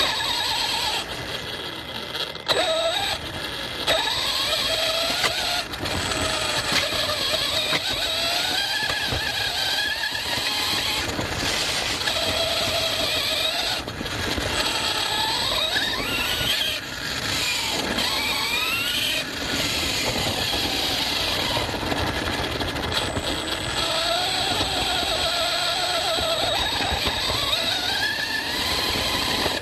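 Electric motor and drivetrain of an ARRMA Fireteam 6S RC car whining, the pitch rising and falling repeatedly with the throttle, over the rattle and crunch of driving on rough off-road ground.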